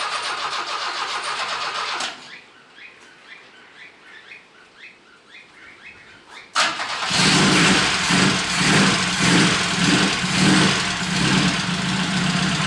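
Chevrolet Chevette's four-cylinder engine being started on petrol poured into the carburettor. The starter cranks for about two seconds and stops. About six and a half seconds in it cranks again, and the engine catches and runs loud with an uneven, pulsing note.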